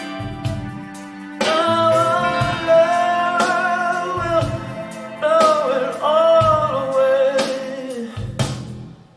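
Rock/folk song: a sung melody with long held notes over strummed guitar, fading out near the end.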